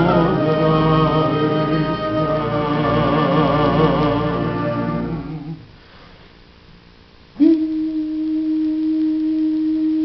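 Symphonic wind band with cello playing a sustained, slow passage with vibrato, which fades out about halfway through. After a brief hush, one long held note enters suddenly near the end.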